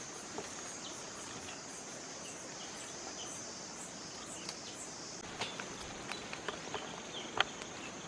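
Steady high-pitched chorus of insects, with scattered small clicks and rustles of leaves and twigs as branches are handled and fruit is picked. The clicks come more often in the second half, with one sharper snap near the end.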